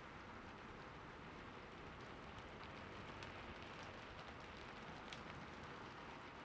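Soft, steady rainfall: an even hiss of rain with scattered individual drop ticks.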